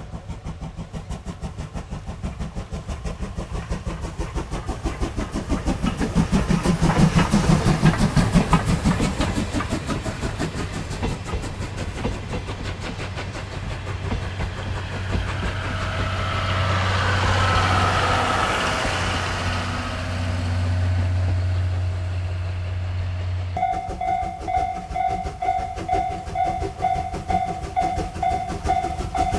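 C11 tank steam locomotive working a train, its exhaust chuffing in a steady beat of about two to three a second, growing louder as it draws near and passes. About two-thirds of the way in the sound cuts abruptly to a railway level-crossing bell ringing in an even, repeating beat.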